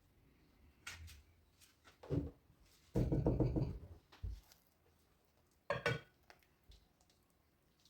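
Kitchen handling noises: a series of knocks and clatters, like bowls, utensils or trays being moved and set down. The loudest is a longer clatter about three seconds in, and a sharper knock follows near six seconds.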